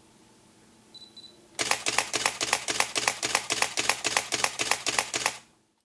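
Canon 5D Mark II DSLR firing a burst in continuous drive mode: its mirror and shutter clicking at about four frames a second for close to four seconds, then stopping abruptly. Just before the burst the camera gives two short high beeps.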